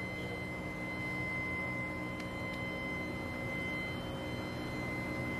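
Steady hum and rushing noise of running machinery, with a constant high-pitched whine over it. Two faint ticks come about two seconds in.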